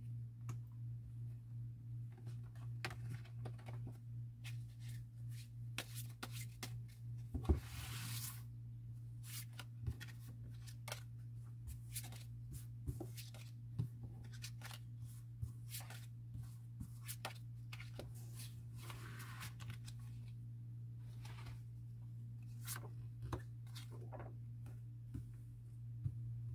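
Tarot cards handled on a cloth-covered table: the deck is spread and slid about with soft swishes, and single cards are picked up and laid down with many light clicks and taps. A steady low hum runs underneath.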